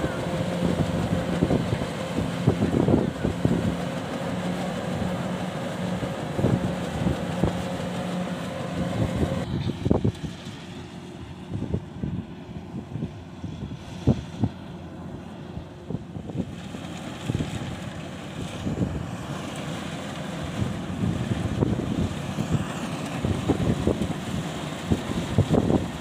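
Kubota DC-105X rice combine harvester's diesel engine and threshing machinery running while it cuts, with wind buffeting the microphone. A steady hum in the first ten seconds or so changes abruptly to a rougher, gustier sound for the rest.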